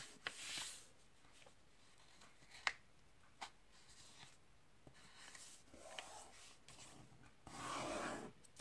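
Sheet of copy paper being folded in half and pressed flat by hand: faint rustles and light paper taps, with a short swish about half a second in and a longer rubbing swish near the end as the fold is smoothed down.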